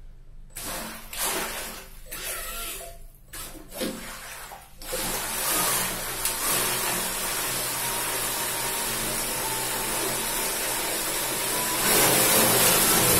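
A 40 mm waterjet thruster held under water: after a few short uneven sounds it starts about five seconds in and runs steadily, churning the water into spray with a steady rush and a faint motor whine. It grows louder about twelve seconds in.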